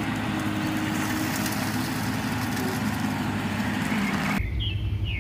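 Volvo crawler excavator's diesel engine running steadily while it works a grapple on a scrap pile. It cuts off abruptly about four seconds in.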